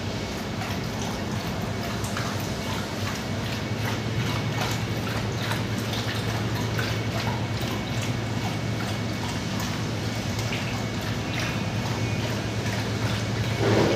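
Dogs lapping and slurping watery food from metal basins: a dense, uneven run of wet clicks and splashes, over a steady low hum.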